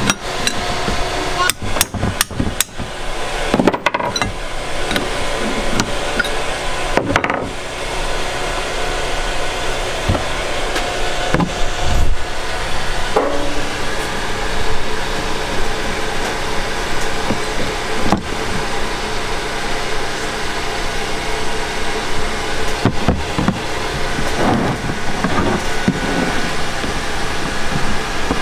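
Metal clinks and knocks of a wrench and parts as a Ford 6.0 Powerstroke high-pressure oil pump is taken apart by hand, the sharpest knocks coming in the first several seconds, over a steady background hum.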